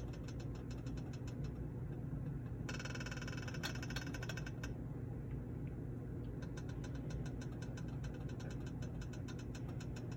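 Hot olive oil crackling and popping in a skillet, a steady run of small sharp pops over a low hum. The oil is heating up toward frying temperature.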